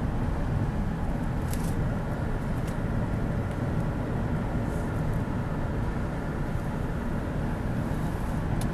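Steady low rumble of a car driving: road and engine noise, with a few faint ticks.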